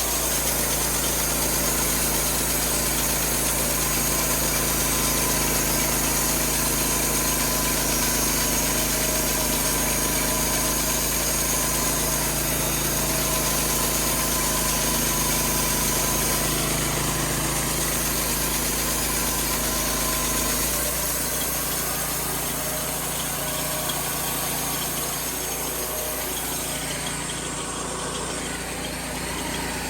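An engine running steadily, a little softer about two-thirds of the way through.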